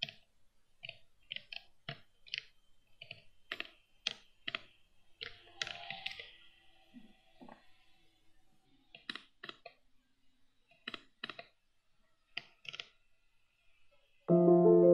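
Computer keyboard typing: irregular key clicks in short runs with pauses between. Piano music starts loudly just before the end.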